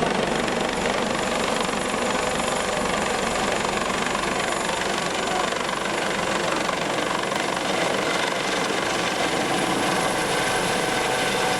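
A helicopter's loud, steady rotor and engine noise as it flies close overhead.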